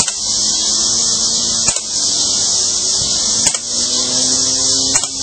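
Four sharp pops from a C11 air pistol fired in single shots about a second and a half apart, over a steady high hiss.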